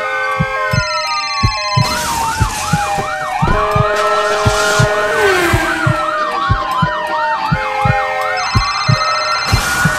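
Ambulance electronic siren sounding, alternating long rising-and-falling wails with a quick warbling yelp. Under it there is a steady low thumping, about three beats a second.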